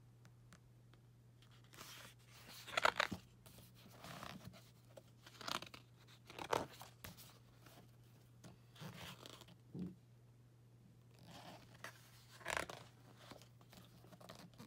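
Pages of a large paperback book being turned and handled: short paper rustles and crinkles coming every few seconds, the loudest about three seconds in, over a faint steady low hum.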